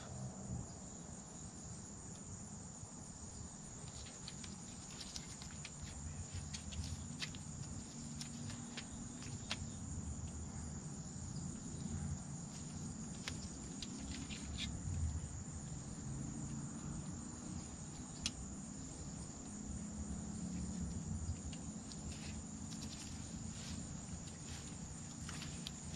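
Steady high-pitched insect trill over a low background rumble, with scattered faint clicks from handling a hydraulic flaring tool and copper tubing.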